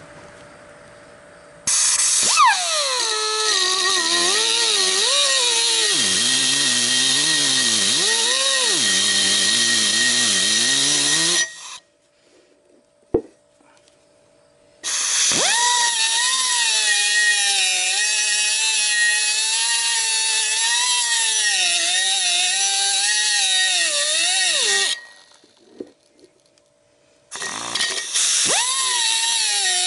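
Pneumatic Blue-Point cutoff tool with an abrasive wheel cutting into a metal channel, run in three bursts with short pauses between. Each burst is a loud air hiss with a whine that sweeps up on start-up, then sags and wavers as the wheel bites into the metal; the tool is short on air and horsepower.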